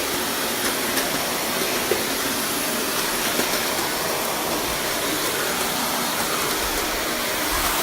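Steady, loud rushing noise with a few faint clicks.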